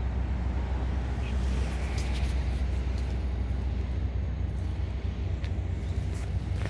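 Steady low rumble of outdoor background noise, with a few faint short clicks.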